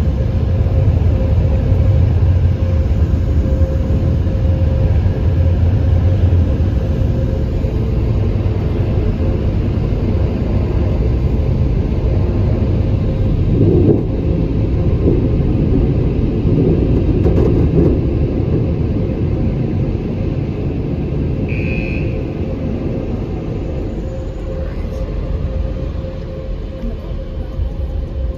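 Car wash dryer blowers running, heard from inside a car: a loud, steady low rumble with a humming tone. It fades gradually over the last several seconds as the car pulls out of the bay.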